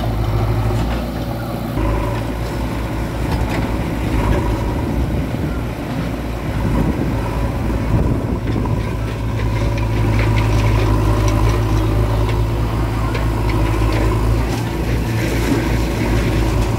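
Diesel engines of a JCB 3DX backhoe loader and a farm tractor running close by: a loud, steady low engine drone throughout, with scattered small clanks.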